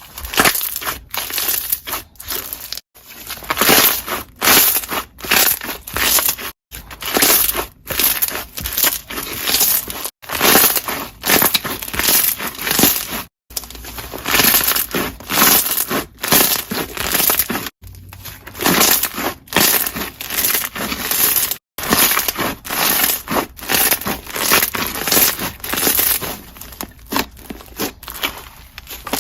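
Slime being squished and pressed, its trapped air bubbles popping in dense, quick crackling pops, broken by several abrupt brief gaps.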